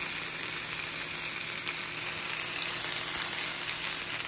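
Stuffed chicken breasts sizzling steadily as they sear in a hot frying pan, browning to a dark char.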